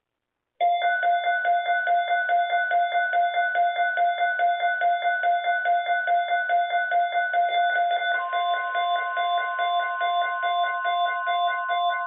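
Weather radio alert alarm: rapid electronic beeping, about five beeps a second, starting half a second in. About eight seconds in, a steady continuous tone joins under the beeps.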